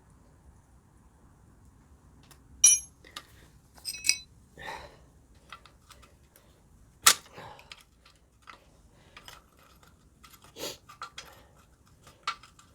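Hand tools and metal parts clinking and knocking during work on an engine. There is a ringing metallic clank about two and a half seconds in, a sharper knock around seven seconds, another near eleven seconds, and scattered lighter clicks in between.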